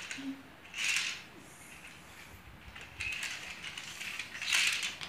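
Plastic toys clicking and rattling as they are handled, in short bursts about a second in and again from about three seconds on, loudest near the end.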